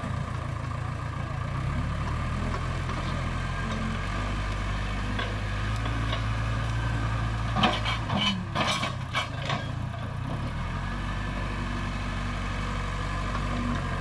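Case 580 Super K backhoe loader's four-cylinder diesel engine running as the machine drives and works through brush, its pitch shifting a few times. About eight seconds in, a quick run of sharp knocks and cracks.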